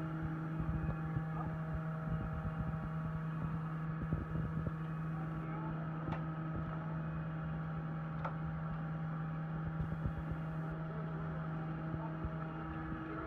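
A steady mechanical hum, a low tone with several higher tones above it, like a motor running, that fades out just before the end. Two sharp clicks come about six and eight seconds in.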